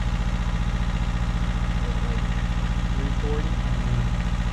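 Mini excavator engine running steadily with an even low pulse.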